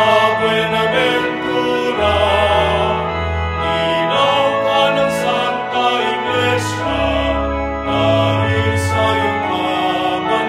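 A hymn sung in Tagalog with instrumental accompaniment: long held sung notes over low bass notes that change every couple of seconds.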